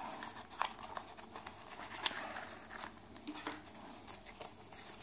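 Small cardboard box and clear plastic wrapping being handled and opened: light crinkling and rustling with scattered small clicks, one sharper click about two seconds in.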